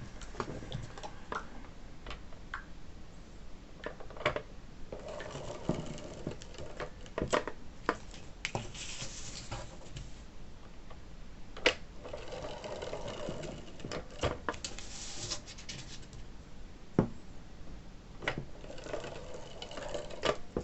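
Tape runner laying double-sided tape along the edges of a paper card in several strokes of a second or two, each a dry rasp, with sharp clicks and taps of the card and runner being handled between them.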